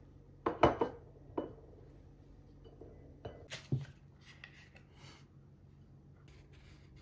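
Tableware being handled on a table: a few sharp knocks of a plate and an ice cream tub, loudest about half a second in, with a smaller knock near one and a half seconds and another short cluster of knocks about three and a half seconds in.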